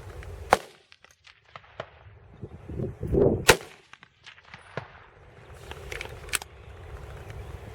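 Rifle shots on a highpower firing line: several sharp reports at irregular intervals, about half a second, three and a half and six seconds in, the one at three and a half seconds the loudest, with fainter distant shots between.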